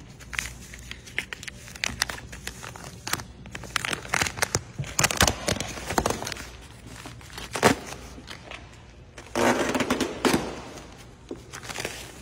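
A disposable non-woven fabric car cover rustling and crinkling as it is pulled and peeled off the car by hand, in a string of sharp crackles. There is a longer, louder rustle about nine and a half seconds in.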